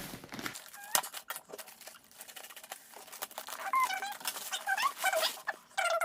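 Packaging crinkling and crackling with sharp clicks as a delivery package is opened by hand; about halfway through, a run of wavering high-pitched animal calls, louder than the handling.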